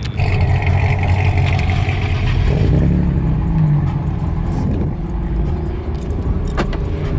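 Car engine and road noise heard from inside the cabin of a tuned MK7 Volkswagen GTI while driving, with the engine note rising slowly in the second half.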